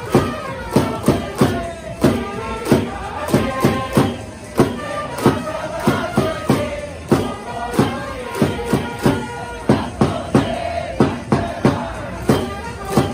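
Baseball cheering section singing and chanting in unison, with sharp claps of plastic megaphone bats struck together in a steady rhythm, about two to three a second.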